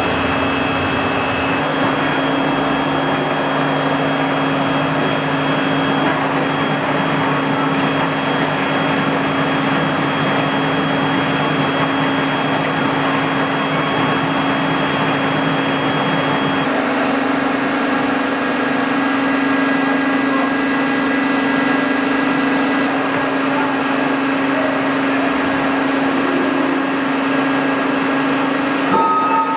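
CNC machining centre running while rough-machining a forged crankshaft: a steady mechanical hum and hiss with thin whining tones. The sound changes abruptly about two seconds in and again around seventeen seconds in.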